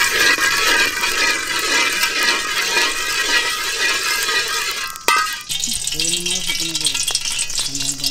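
Dalda vegetable shortening sizzling loudly as it melts in a hot iron kadai, stirred with a perforated ladle. The sizzle cuts off about five seconds in and a person's voice follows.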